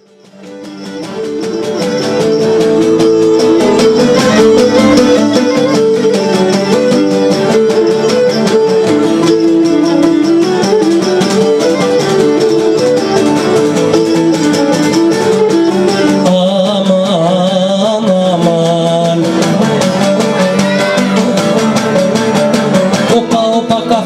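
Traditional Cretan instrumental music: a bowed Cretan lyra plays the melody over plucked Cretan lutes (laouto). It fades in from silence over the first two seconds.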